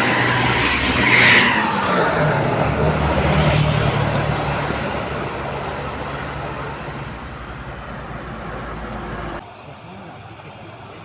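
A bus's engine passing close while climbing a hill, with a brief loud burst about a second in, then fading steadily as the bus pulls away. The sound drops off suddenly near the end.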